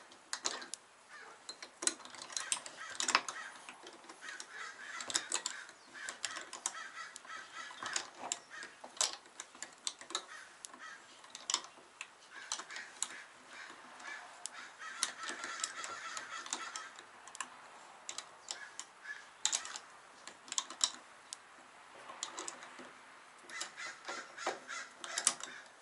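Irregular metallic clicks and clinks of hand tools (socket, Allen key, locking pliers) working the top nut of a coilover strut as it is tightened down by hand.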